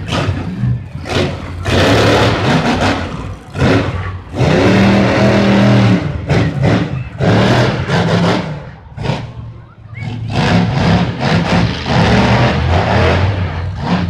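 Monster truck engine revving hard in repeated bursts of one to two seconds, the throttle snapping open and shut with short dips in between.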